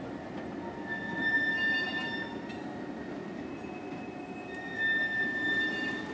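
Loaded freight cars rolling past on the rails, a steady rumble with wheel squeal: high squealing tones rise about a second in and again near five seconds.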